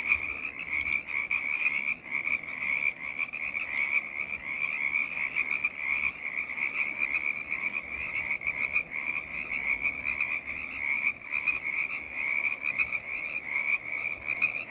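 A dense chorus of many frogs calling at once: a steady, high-pitched, pulsing din with no breaks.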